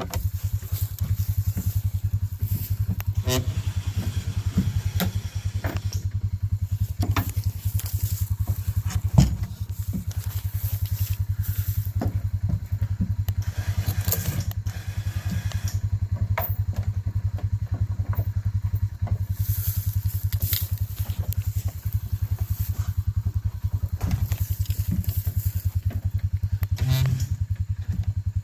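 A small engine running steadily at an even speed, with scattered knocks and rattles over it; the sharpest knock comes about nine seconds in.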